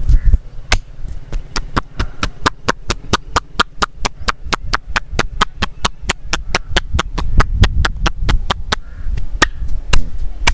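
Hands striking the body in rapid massage percussion: sharp slaps about five a second, stopping about nine seconds in, with two more strokes after, over dull low thumps.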